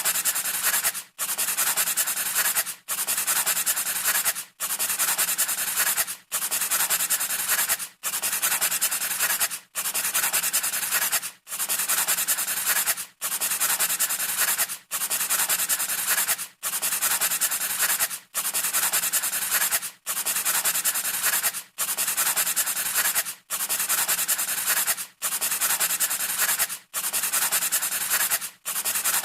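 A scratchy rubbing noise, like something being scraped or sanded, repeated as an even loop: each stretch lasts about a second and a half, with a short break between, roughly every 1.7 seconds.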